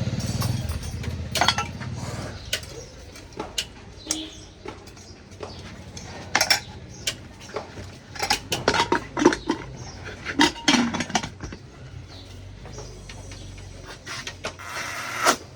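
Irregular clinks and clatter of hard metal objects being knocked and handled, several sharp strikes a second at the busiest moments.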